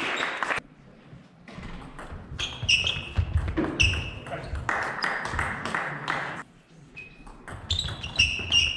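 Table tennis ball ticking sharply off paddles and the table in quick series, with a short ringing ping on each hit, in two stretches about two and a half seconds in and again near the end. Low thuds come in between.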